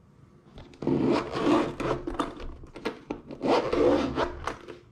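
Zipper of a molded hard-shell carry case being pulled open around its edge, a rasping run in two long pulls with a few small clicks between them.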